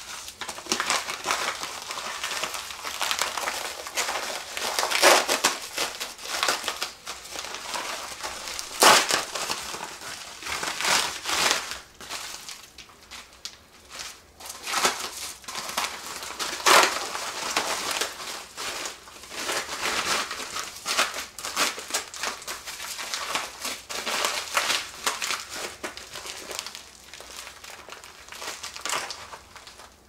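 Plastic bubble wrap crinkling and rustling as it is handled and pulled about, irregular and continuous, with a few sharper, louder crackles.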